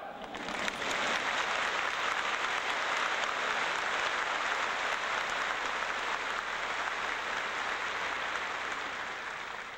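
Audience applauding, swelling up within the first second and dying away near the end.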